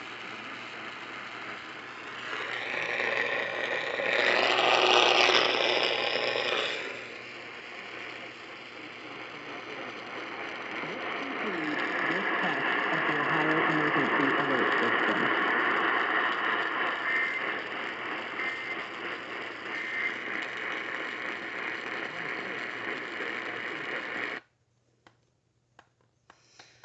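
Radio receiver static from a weak, fading distant signal, with a faint station's audio buried in the hiss; the noise swells a couple of seconds in and again from about ten seconds. It cuts off suddenly near the end, followed by a few faint clicks.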